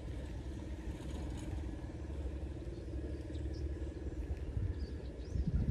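An engine running with a steady low rumble and a faint even hum, then a short low thump near the end.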